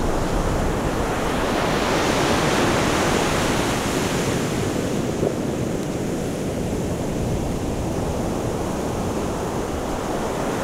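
Ocean surf washing onto a sandy beach, with wind on the microphone; a wave swells loudest around two to four seconds in.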